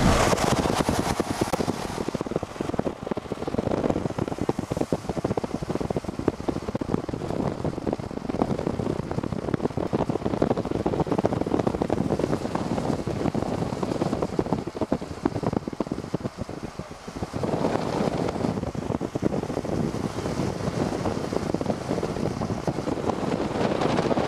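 Wind buffeting the camera microphone: a dense, rushing noise that rises and falls, easing briefly about two-thirds of the way through.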